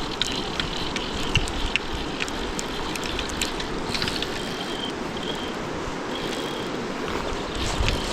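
Steady rush of a flowing river, with scattered short clicks during the first few seconds.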